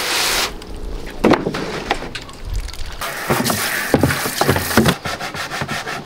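A rigid plastic wading pool being emptied and moved: the last of the water pours out during the first half second, then a string of plastic knocks, rubs and scrapes.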